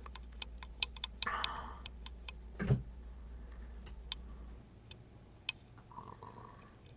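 Lock pick clicking against the pin stacks of an Emhart Black Belt lock: a quick even run of about five clicks a second for the first two seconds, then single clicks spaced out, with one dull knock about three seconds in.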